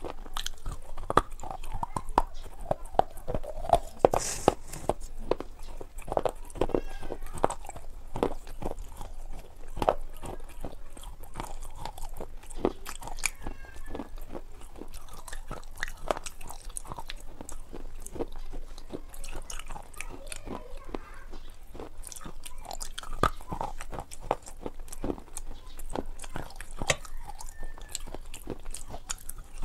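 A person eating close to the microphone: chewing with many wet mouth clicks and smacks, and crunching bites of food.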